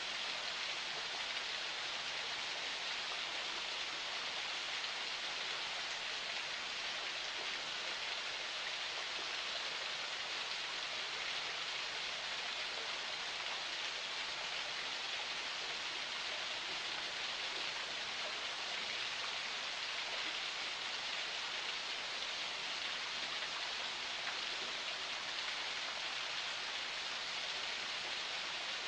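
Forest spring flowing: a steady, even rush of running water.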